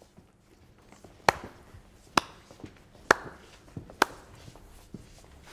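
Four sharp, evenly spaced hits, just under a second apart, each with a short ring after it, over a faint background.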